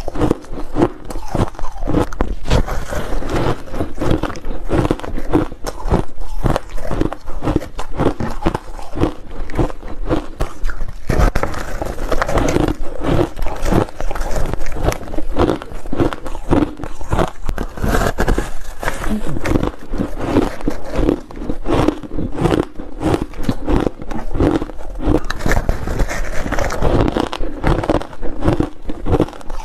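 Close-miked biting and chewing of a block of crunchy frozen purple ice: a continuous run of sharp crunches and crackles, many each second.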